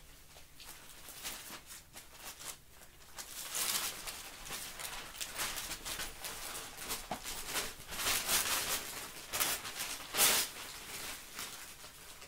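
Newspaper pages rustling and crinkling in irregular bursts as a corgi puppy tugs and chews at them and the sheets are handled. The loudest crackle comes about ten seconds in.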